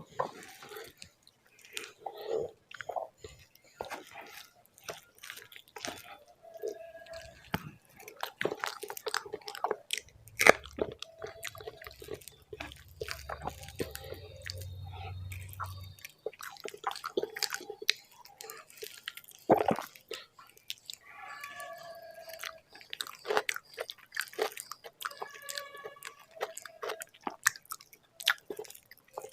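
Close-miked chewing of a mouthful of rice and mashed bharta: wet, sticky mouth sounds with many quick clicks. A low hum runs underneath for several seconds in the middle.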